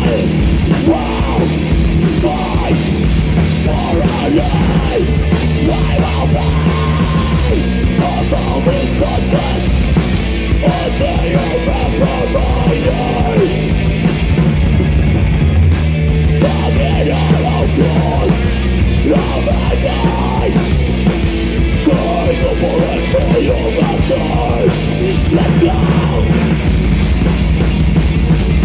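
Loud heavy rock band playing live, in a punk or metal style, with yelled vocals over distorted music.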